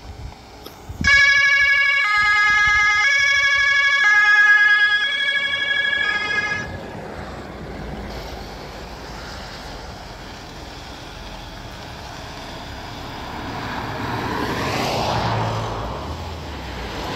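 Police SUV's electronic siren sounding a run of held tones that step between several pitches for about five seconds, then stopping. A steady rushing noise follows and swells near the end.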